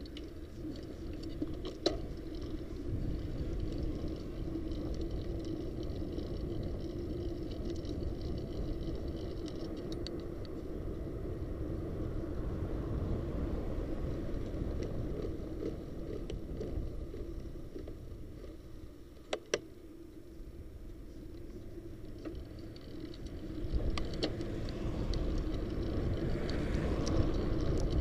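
Steady wind and road noise from riding a bicycle along city streets, with wind on the microphone and a few sharp clicks. The noise grows louder near the end.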